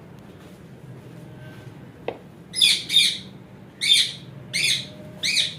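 Parrot calling: five loud, short calls in quick succession from about halfway through, preceded by a single sharp click.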